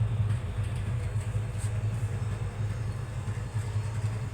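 A steady low mechanical hum, wavering slightly in level.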